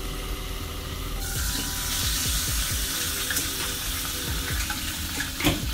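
Beef patty and melting cheese sizzling in a non-stick pan with a little water steaming off, the sizzle turning louder and brighter about a second in, once the lid is off. A short knock sounds near the end, over soft background music.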